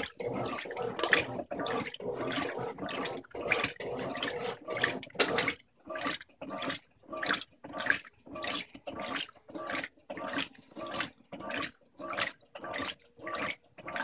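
Electrolux LDD16 16 kg top-load washing machine agitating a load of blankets in a full tub on its high water level: water sloshes and churns in regular short strokes, about one and a half a second, and from about halfway on each stroke is followed by a brief silence. The owner holds that this stop-start agitation on the high level is a characteristic of the machine, not a fault.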